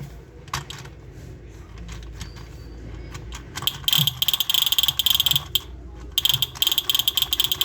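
Battery-operated toy gun being test-fired: a few light clicks, then two bursts of fast rattling clicking from its gear mechanism, each about two seconds long, the first about halfway through and the second near the end.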